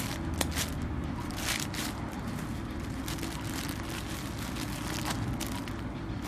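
Packaging being handled, with irregular crinkling and rustling, over a steady low background rumble.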